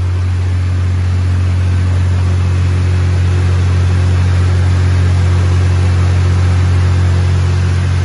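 MAXIA MX-LI10T industrial immersion vegetable washer running: a loud, steady low motor hum with water churning beneath it.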